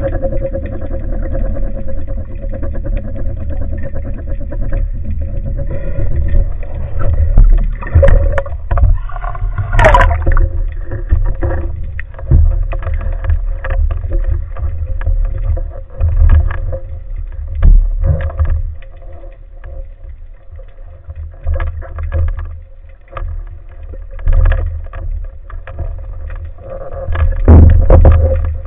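Underwater noise heard through an action camera's waterproof housing: a low rumble of moving water with irregular knocks and clicks as the speargun and the speared fish are handled, over a faint steady hum. There is one sharp click about ten seconds in, and a louder surge of water noise near the end as the diver nears the surface.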